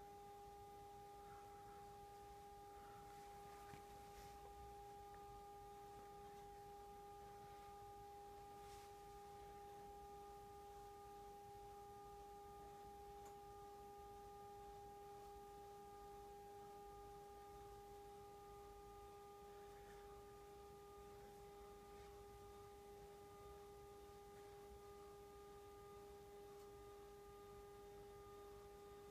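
Motorized telescope mount slewing the telescope toward its park position, its motors giving a faint, steady whine that holds one pitch throughout.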